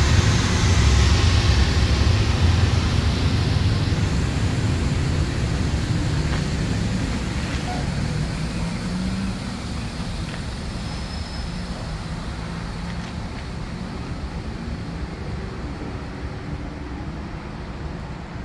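Train rumbling past and moving away, loudest at the start and fading steadily.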